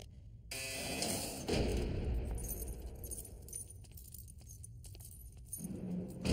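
A heavy door clanks open about a second and a half in, followed by keys jangling and rattling.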